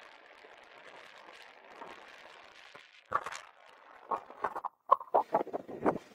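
Skis sliding on snow with a faint hiss, then from about three seconds in a run of loud, irregular scrapes and knocks.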